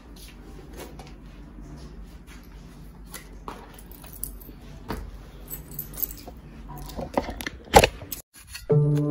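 Close handling noise: rustling with many small clicks and jingles as objects are handled right by the microphone, and one louder knock about three-quarters of the way through. After a short dropout, music with held notes starts near the end.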